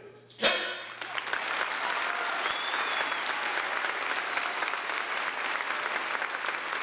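A sharp crack about half a second in, with voices shouting, then an audience applauding steadily and cheering.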